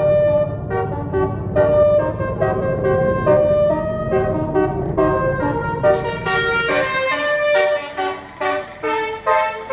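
A tour bus's basuri multi-tone air horn playing a stepping melody over the rumble of the bus. The rumble drops away about seven seconds in while the horn tune carries on.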